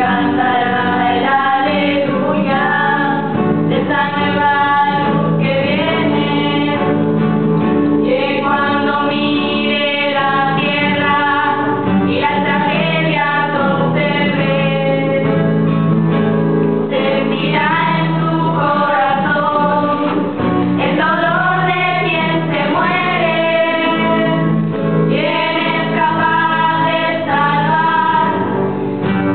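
A group of women and girls singing together, a traditional Asturian ramo song, over a steady low hum.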